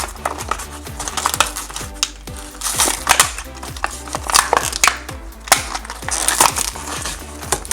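Small hard-plastic toy pieces being handled, giving an irregular run of clicks and knocks, over background music.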